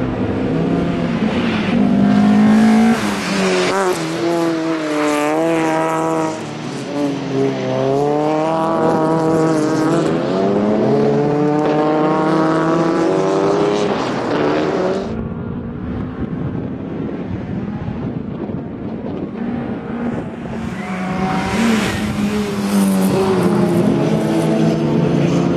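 Peugeot 306 rally car being driven hard around a tarmac circuit. Its engine revs climb and drop again and again as it accelerates out of corners and brakes into the next. The sound dulls for a few seconds past the middle as the car draws away, then comes back loud near the end.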